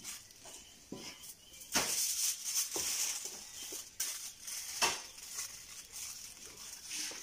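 Plastic bag crinkling and rustling as it is handled on a table, with a few sharp knocks, about one a second in the first half.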